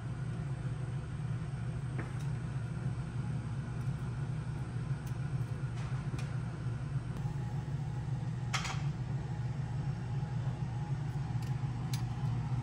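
Steady low mechanical hum, like a fan or motor running, with a few light clicks; the sharpest click comes about eight and a half seconds in.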